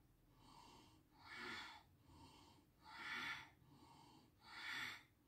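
A woman doing Bhastrika (bellows breath): three forceful exhales, about one every second and a half, each driven by pulling the belly in, with a softer, passive inhale between them.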